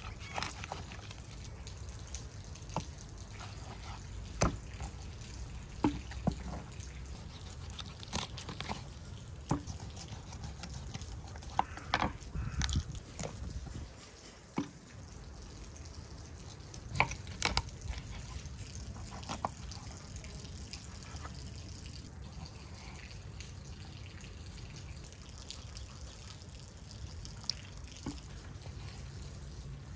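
Knife cutting up raw chicken on a wooden cutting board: irregular knocks and clicks of the blade against the board, with wet, squelchy handling of the meat.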